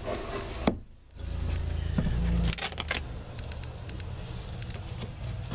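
Low rumble of handling noise on the microphone, then a quick run of light clicks as a window shade in the camper is pulled back.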